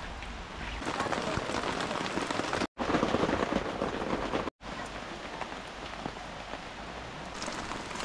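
Heavy rain falling steadily on tent flysheets. It is loudest in the middle stretch and drops out abruptly twice, a little under three seconds in and again about halfway through.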